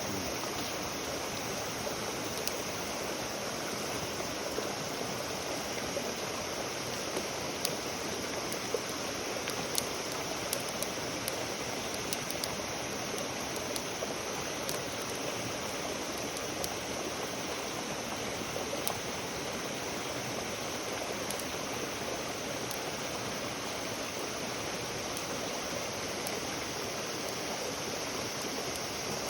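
Steady rushing hiss with scattered faint crackles.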